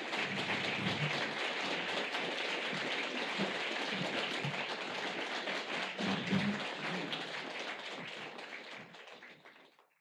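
Audience applauding, a dense patter of many hands clapping at the end of a lecture, fading out over the last two seconds.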